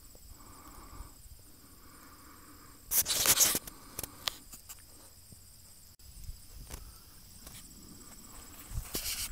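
Footsteps on gravel as someone walks slowly, with a louder scuffing crunch about three seconds in and a few more near the end.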